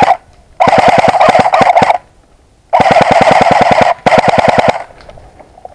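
Airsoft M4A1 rifle firing on full auto in short bursts of about one to one and a half seconds, each a rapid string of shot clicks over the whir of its mechanism; the last two bursts are almost back to back.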